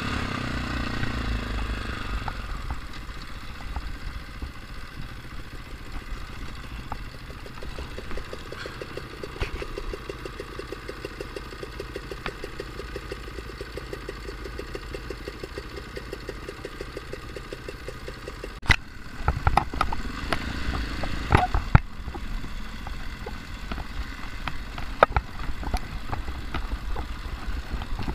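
Dirt bike engine heard from the bike itself: it eases off, then putters along at low speed with an even beat, and picks up again about two-thirds of the way through, with sharp knocks and clatter from the bike over rough trail.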